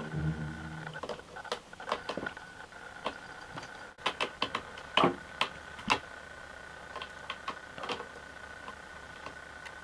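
Cat claws scratching and catching on the sisal rope of a cat tree post, giving irregular sharp clicks and scrapes, thickest about halfway through. A faint steady high whine sits under them.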